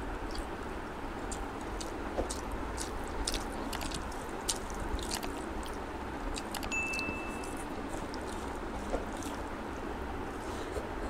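Close-miked chewing and mouth sounds of a man eating rice and egg curry with his hand: scattered wet smacks and small clicks over a steady background hiss. A short high beep sounds once, a little past the middle.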